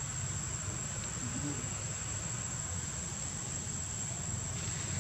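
Insects shrilling in one steady, unbroken high-pitched tone, over a low steady rumble.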